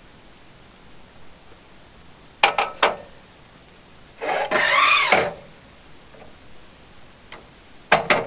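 Sharp knocks and clanks from hand work while leveling a sawmill bed on cross ties: a quick run of three about two and a half seconds in, a rougher sound about a second long a little later, and two more near the end.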